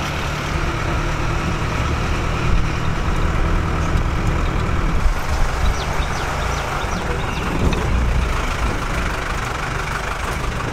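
Jeep engine running while driving, with road noise, heard from inside the jeep: a steady, loud low rumble throughout.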